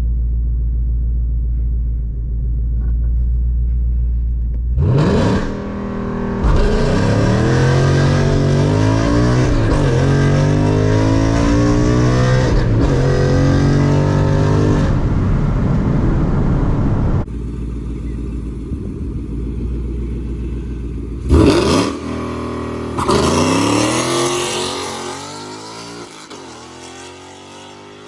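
2019 Ford Mustang GT's 5.0-litre V8 on drag slicks. It idles with a low rumble, then revs once. Next it is held at high revs through a burnout, with tyre hiss, before settling back to idle. About 21 seconds in it launches at full throttle, pulling up through the gears with several shifts and fading as it runs down the strip.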